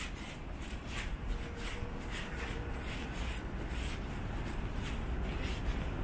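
Footsteps of a person walking at a steady pace across asphalt and paving, about two steps a second, over a low steady background rumble.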